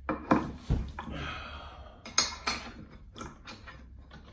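Hard parts of an electric unicycle pedal clicking and knocking as the pedal's centre pivot piece is handled and fitted into the pedal: a series of sharp clicks, the loudest about two seconds in.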